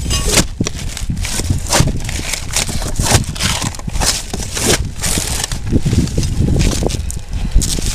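Irregular knocks and scrapes, several a second, over a low rumble of wind on the microphone.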